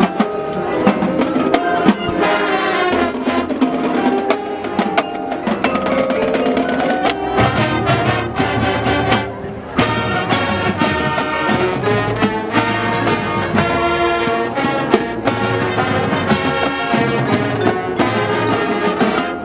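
High school marching band playing its field show: brass winds carrying the melody over a battery of drums and percussion, with a short drop in level about halfway through before the full band comes back in.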